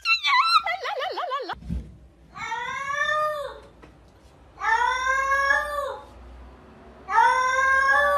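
Cat meowing three times, evenly spaced, each a long drawn-out meow that drops in pitch at its end. Before them, a wavering wail falls in pitch and cuts off about a second and a half in.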